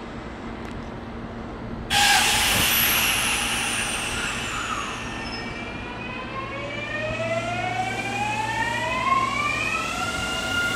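Electric commuter train at the station. A loud rush of train noise starts suddenly about two seconds in, then the traction motors whine in several tones that climb steadily in pitch as the train accelerates, levelling off near the end.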